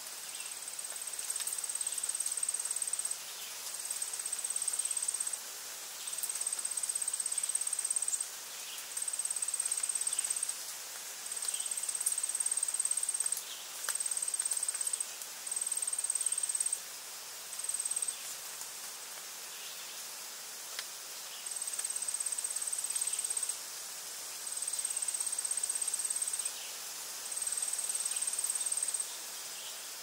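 A high-pitched insect trill in repeated bouts of about two seconds, with a longer pause a little past the middle, over the steady rush of a waterfall and rapids.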